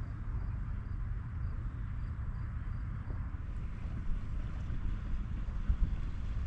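Wind buffeting the microphone outdoors: a steady, low, noisy rumble with no distinct tones.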